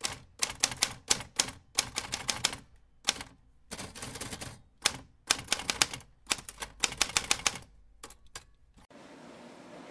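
Typewriter keys clacking in quick runs of strokes separated by short pauses, stopping about nine seconds in.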